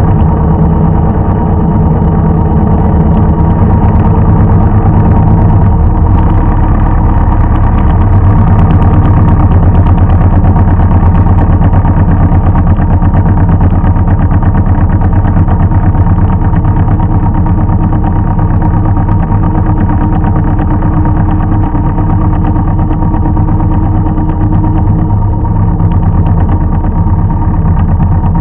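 Engine of farm equipment running steadily and loudly, its firing heard as a fast, even pulse.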